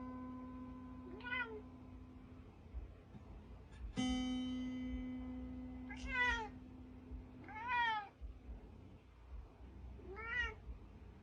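Domestic cat meowing four times, each meow short and rising then falling, spaced a few seconds apart. Two long held musical notes sound behind it, the second struck about four seconds in and slowly fading.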